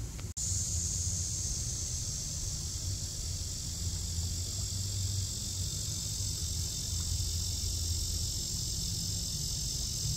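A steady, high-pitched drone of insects that holds evenly throughout, over a low background rumble.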